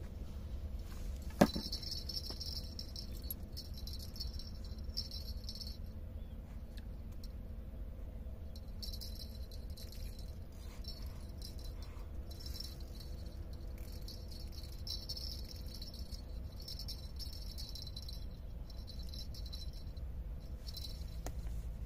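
Spinning reel being cranked in stretches of a few seconds, a light rattling whir that starts and stops, as a hooked fish is reeled in. A single sharp knock comes about a second and a half in.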